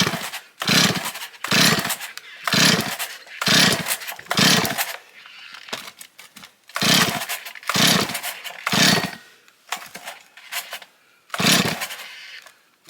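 Choked two-stroke Stihl 024 chainsaw being pull-started: about ten short rasps of the starter cord turning the engine over, six in quick succession, then three, then one. It does not catch and keep running.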